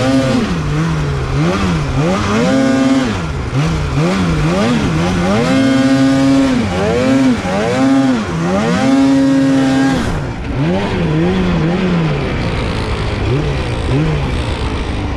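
Polaris Khaos Slash 9R snowmobile's two-stroke twin engine revving up and down over and over as it is ridden, the pitch climbing and dropping with the throttle and held high for about a second several times. A steady hiss runs underneath, and near the end the engine settles lower and steadier.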